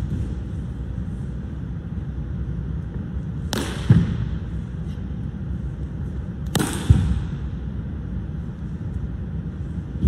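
Two sharp slaps about three seconds apart, each followed a moment later by a dull thud, from a changquan wushu routine: the cracks of hand strikes on foot or body and the thuds of feet landing on the competition carpet, over a steady low background hum.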